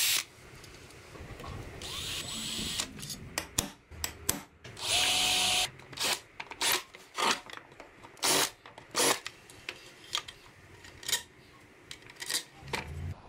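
Power drill running in short bursts, the loudest lasting under a second with a steady whine, followed by a run of short sharp bursts and knocks, about one or two a second.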